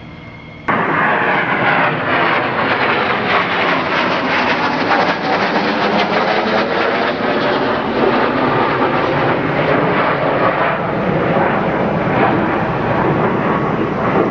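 Loud, steady engine noise of an airplane in flight, starting abruptly about a second in.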